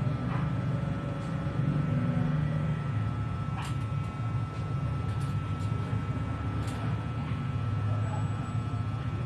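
A steady low mechanical rumble, like a running engine, with a constant high-pitched hum and a few faint clicks in the middle.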